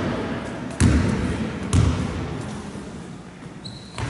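A basketball bounced twice, about a second apart, on a wooden gym floor, each bounce echoing in the hall: a player dribbling at the free-throw line before the shot.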